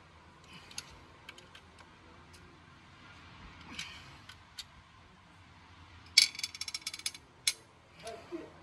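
Ratchet wrench working the cylinder-head bolts of a Suzuki Cultus engine: scattered metal clicks and clinks, then a quick run of about a dozen ratchet clicks about six seconds in, the loudest sound, followed by a few more clicks.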